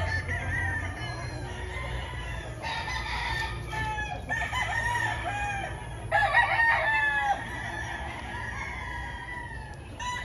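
Several roosters crowing one after another, with calls overlapping and some louder than others; the loudest crow comes about six seconds in.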